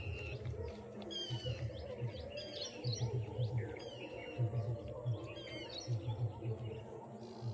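Birds chirping and calling in short sweeping notes, over a low rhythmic pulsing that repeats in groups of a few beats.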